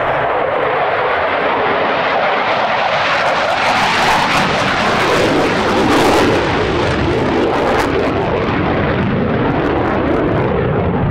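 Dassault Rafale fighter's twin Snecma M88 turbofans on afterburner as the jet pulls up and away: loud, continuous jet noise that peaks about five to six seconds in, then loses its hiss and eases as the aircraft recedes.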